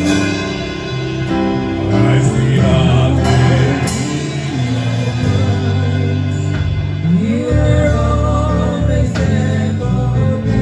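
Gospel worship music: singing over accompanying instruments, with a long held note sliding up about seven seconds in.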